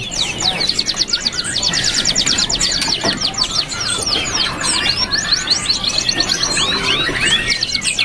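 Red siskin singing a continuous, canary-like song of rapid high trills mixed with quick falling notes.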